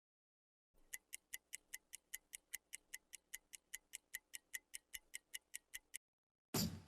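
Fast, even ticking of a timepiece, about five crisp ticks a second, starting just under a second in and stopping about a second before the end. Music with drums starts near the end.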